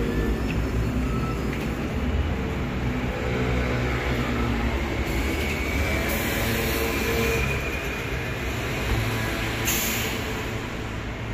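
Street traffic: vehicle engines, among them a city bus, running with a steady low rumble, with a few short hisses in the middle and near the end.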